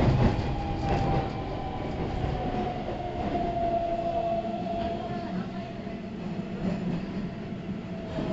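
Keihan 3000-series electric train heard from inside the car, slowing down: the traction-motor whine falls slowly in pitch over the low rumble of wheels on rail, with a couple of wheel clacks near the start.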